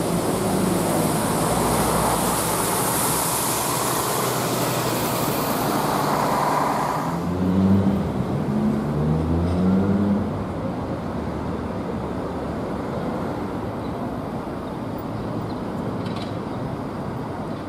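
Road traffic: a broad hiss of passing vehicles, then an engine revving up in a few rising steps about eight seconds in, settling into a steadier, quieter traffic hum.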